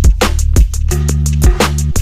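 Electronic music track with a fast drum beat and a deep bass line that shifts pitch about a second in.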